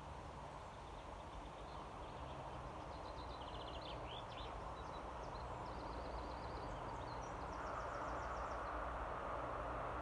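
Approaching diesel train on an unelectrified line, a low rumble slowly growing louder, with a rushing rail noise swelling over the last couple of seconds. Small birds chirp and trill through the middle.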